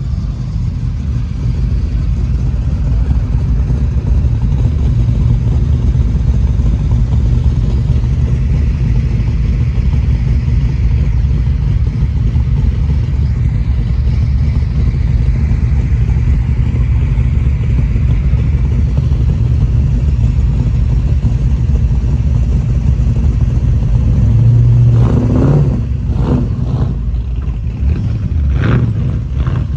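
Car engine running with a loud, deep exhaust rumble. Near the end it is revved a few times in short blips.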